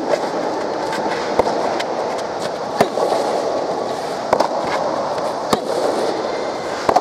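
Soft tennis rally: the soft rubber ball struck back and forth by rackets, sharp pops about every second and a half, over steady background noise.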